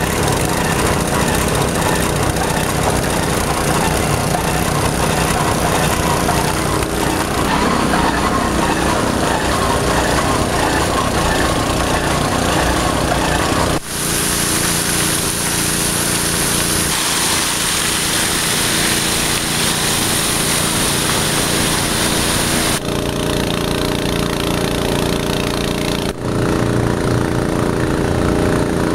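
The engine of a trailer-mounted portable water pump running steadily at a constant speed while it pumps out floodwater. About halfway through, loud rushing water from the pump's discharge hose joins the engine sound for several seconds.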